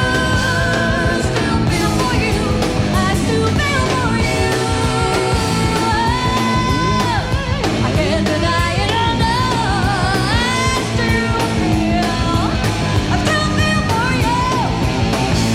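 Live rock-fusion band playing a song, with female lead vocals over electric bass and drums, heard from an FM radio broadcast taped on cassette.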